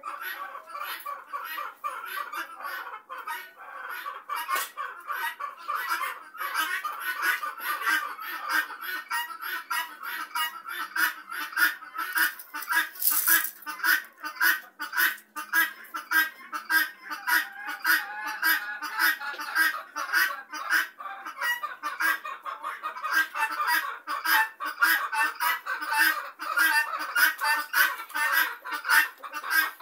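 A flock of helmeted guineafowl calling: a dense chorus of short, harsh calls repeated several times a second, growing louder and busier after about six seconds.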